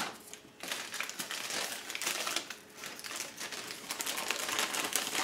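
Close crinkling and rustling in irregular spells, with brief lulls about half a second in and near the three-second mark.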